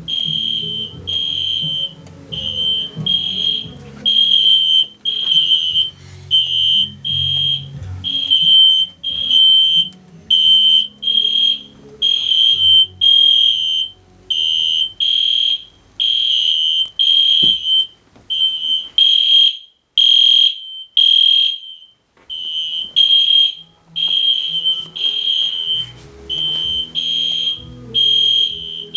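Fire alarm horn strobes, among them a System Sensor SpectrAlert P1224MCW and an EST Genesis G1RF-HDVM, sounding together during a test. They give loud, rapid, repeating high-pitched horn blasts, with a brief gap about three-quarters of the way through.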